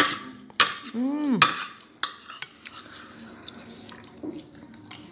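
A metal spoon scraping and clinking against a plastic plate as the last noodles are gathered up. The clicks are sharpest in the first second. A brief voice sound comes about a second in.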